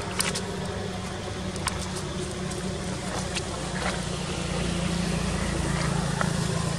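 A steady low mechanical hum with a few scattered sharp clicks.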